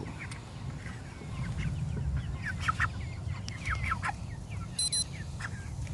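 Cornish Cross meat chickens clucking: short, falling calls scattered throughout, over a low steady rumble. A brief electronic beep sounds about five seconds in.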